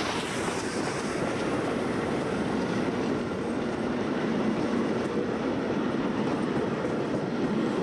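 Steam-hauled train of vintage passenger coaches passing close by at speed, a steady loud noise of wheels running on the rails.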